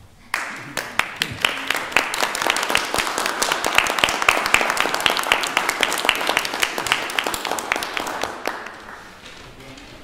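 Audience applause, starting suddenly just after the start as many sharp, irregular claps and dying away over the last couple of seconds.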